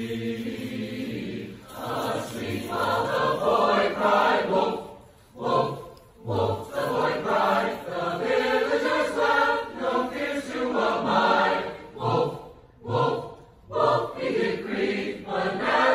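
A choir singing, its phrases broken by a few short pauses about five to six seconds in and again near thirteen seconds.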